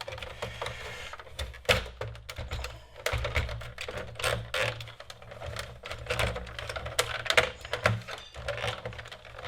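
Plastic top case of an Amiga 500 being prised off its base: a run of irregular plastic clicks and knocks.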